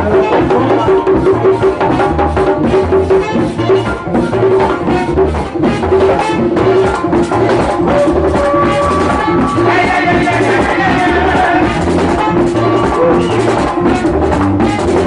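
Live Latin band playing an instrumental passage: a steady drum beat with maracas and other percussion under pitched instruments.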